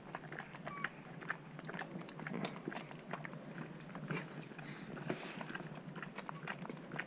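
Shar pei puppies suckling from their mother: faint, irregular wet sucking and smacking clicks.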